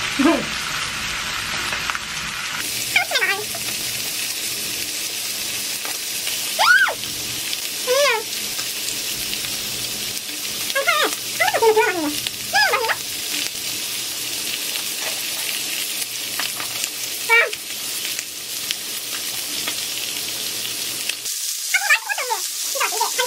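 Pork sizzling steadily as it grills in a hot pan, with a few short, high, bending whines breaking in now and then.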